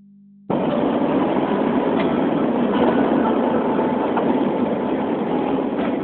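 Steady engine and road noise of a moving vehicle heard from inside it, starting abruptly about half a second in.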